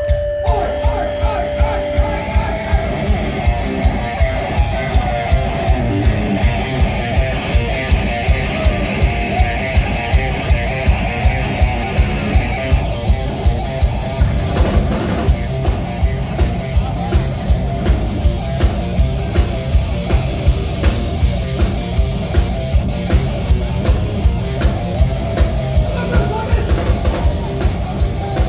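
Heavy metal band playing live: distorted electric guitar over drums, with a steady kick-drum beat about two times a second.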